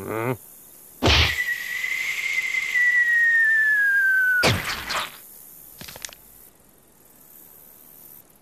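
Cartoon sound effects: a sharp whack, then one long whistle that sinks slowly in pitch for about three and a half seconds and ends in a crashing thud. It is the cartoon sound of the gnat flung through the air and hitting the ground.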